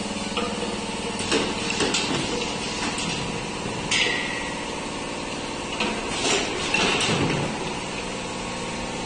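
Weight-grading sorter conveyor running with a steady motor hum. Its diverter arms clack several times at uneven intervals, and one clack about four seconds in has a short hiss after it.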